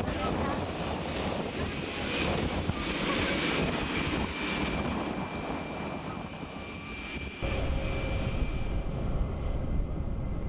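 Jet airliner running on the airport apron: a steady rushing noise with a thin high whine, and wind buffeting the microphone. A louder, deeper rumble comes in about seven and a half seconds in.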